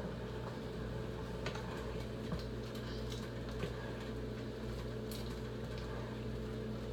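Steady low hum, with a few faint, scattered light clicks.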